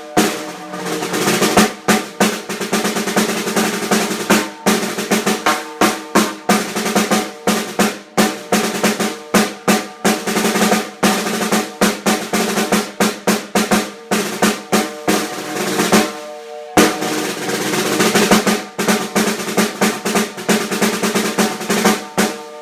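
Highwood Beech Legacy 14x6 beech-shell snare drum being played: fast strokes and rolls with louder accents over a sustained ring. There is a brief break about sixteen seconds in, then the playing resumes.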